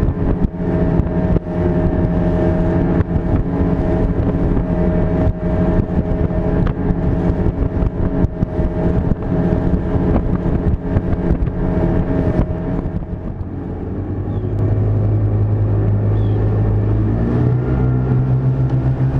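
Small boat's engine running underway, a steady note with frequent short knocks over it. About 13 seconds in the engine eases off to a lower, steadier note, which steps up in pitch a few seconds later.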